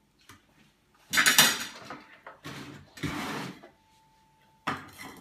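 Kitchenware handled on a countertop: a small metal mesh sieve set down on a plate and a plastic container and its lid moved about, giving a few short clatters and scrapes. The loudest comes about a second in, and a sharp knock comes near the end.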